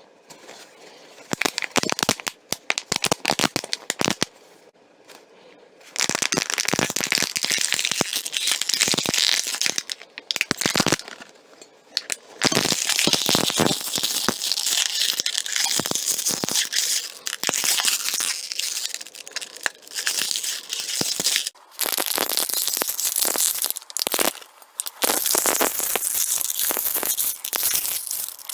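Plastic water bottle and aluminium drink can being squeezed and rubbed close to the microphone: a dense crinkling crackle full of small clicks. It comes in short bursts at first, then in long stretches with a few brief pauses.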